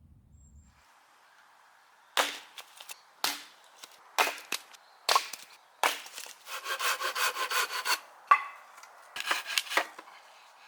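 Wood being cut and broken: sharp woody cracks about a second apart, a quick run of about five sawing strokes a second around the middle, then a few more cracks.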